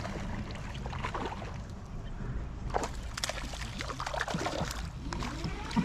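Water sloshing and splashing around a kayak, with scattered sudden splashes over a steady low rumble.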